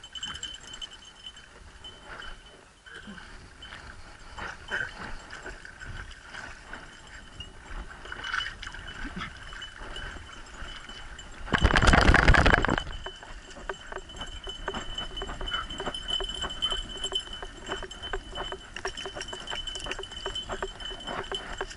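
Metal dog-collar tags and harness hardware jingling and clinking over and over as a dog moves, with a faint steady high tone underneath. About twelve seconds in, a loud rushing burst lasts about a second.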